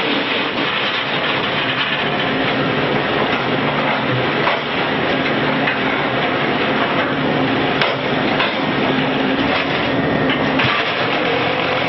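QTJ4-25 automatic concrete block-making machine line running: a steady, dense clatter and hum from its electric motors and belt conveyor, with a few sharper knocks, about four and eight seconds in.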